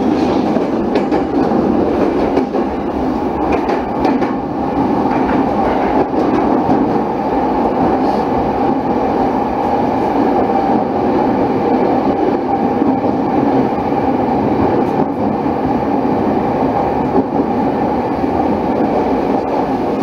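Running noise inside a Saikyo Line electric commuter train on elevated track: a steady rumble of wheels on rail, with a few faint clicks in the first half.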